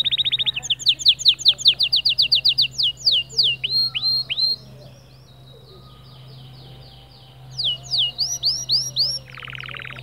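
White male canary singing: a fast run of repeated chirps, then swooping notes, a pause of about three seconds with only faint notes, then more swooping notes and a fast buzzy trill near the end.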